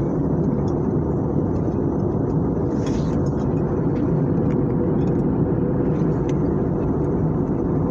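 Airliner cabin noise during descent: a steady, low rushing roar of the jet engines and the airflow over the fuselage, with a few faint small clicks above it.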